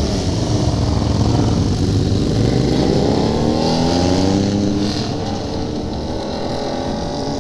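Motorcycle engines accelerating away from a stop. The engine pitch climbs, dips, and climbs again, over a steady low rumble.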